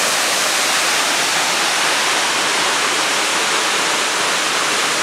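Tall single-drop waterfall falling into its plunge pool: a steady, even rush of water.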